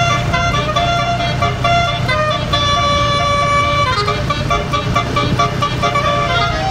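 Multi-note 'telolet' horn on a tour bus playing a tune of stepping notes, with one long held note in the middle and a short downward slide about four seconds in. A low engine rumble runs underneath.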